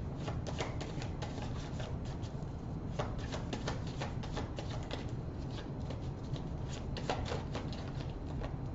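A deck of tarot cards being shuffled and handled, making a string of light, irregular card clicks and flicks.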